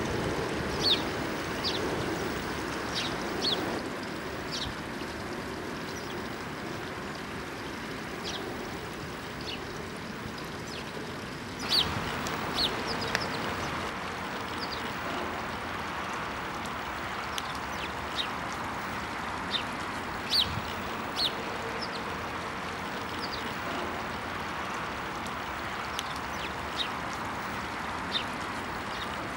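House sparrows chirping in short, scattered calls over a steady rush of water. About halfway through, the water sound changes to the splash of a spout pouring into the pool.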